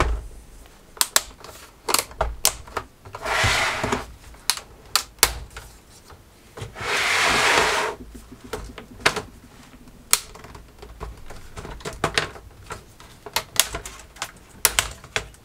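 The plastic front bezel of a Samsung Syncmaster 225BW LCD monitor being pried off by hand: an irregular string of sharp clicks and snaps as its clips release, with two longer scrapes, each about a second.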